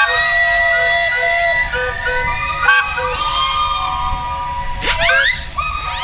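Many steam engine whistles sounding together, a mix of engine, train and boat whistles: overlapping steady tones at different pitches, some cutting in and out. About five seconds in, another whistle glides up to its pitch.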